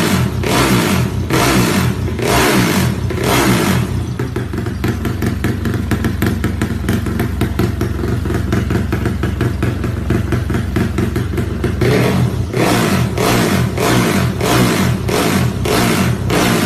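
Modified Yamaha Y15ZR (Exciter 150 / MX King 150) 150 cc single-cylinder four-stroke engine revved in quick repeated throttle blips. It then holds a steady rev for about eight seconds before the blips start again near the end.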